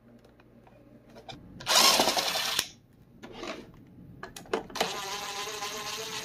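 DeWalt brushless cordless drill backing screws out of a Roomba's underside. It runs in a loud burst of about a second roughly two seconds in, then runs again steadily with a whine from about five seconds on.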